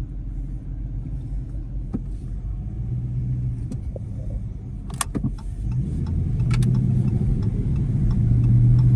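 Dodge Charger's Hemi V8, heard from inside the cabin while driving, running steadily and pulling under throttle. It grows louder in the second half, with a few sharp clicks around the middle. There is no major rattle: the heat-shield rattle has been cured.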